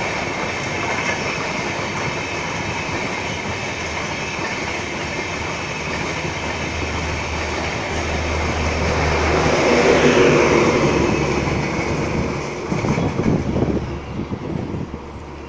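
Passenger express train of LHB coaches rolling past at speed: a steady rumble and rushing wheel noise on the rails that swells to its loudest about ten seconds in. Near the end comes a quick run of wheel clatter over rail joints, then the sound fades away.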